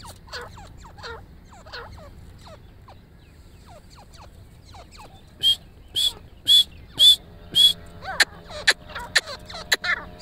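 Caged grey francolins calling: a few soft, falling notes at first, then from about halfway a loud, high, sharp note repeated about twice a second, with lower falling notes mixed in near the end. A steady low drone runs underneath in the second half.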